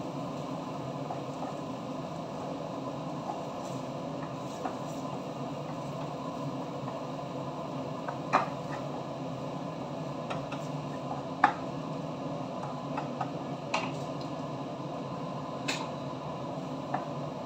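Wooden spatula stirring a thick tomato-paste mixture in a frying pan, with a few sharp knocks of the spatula against the pan, the loudest about eleven and a half seconds in, over a steady background hiss.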